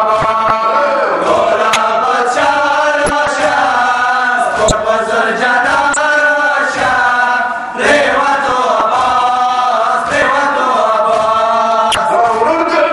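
A group of men chanting a Shia mourning lament (noha) together into a microphone, in a sustained, melodic unison. A few scattered sharp knocks cut through it.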